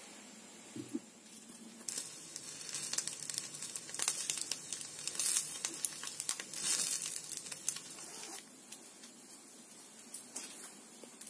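An egg frying in hot oil in a pan, sizzling with many crackling spits of fat; the sizzle starts abruptly about two seconds in and drops back to a faint hiss about eight seconds in.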